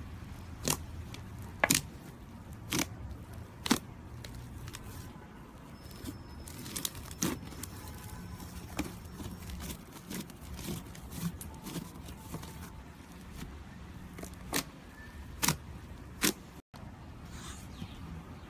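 Hands squeezing and pressing thick slime, giving sharp pops and clicks as trapped air bursts. The pops come about once a second at first, then scattered softer ones, then a few more near the end.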